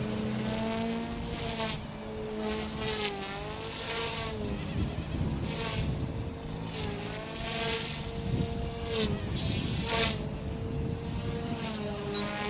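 OMPHOBBY M2 mini electric 3D RC helicopter flying full-throttle aerobatics: the brushless direct-drive motor and rotor whine, the pitch dipping and rising with each manoeuvre, with several brief rushing swells of noise.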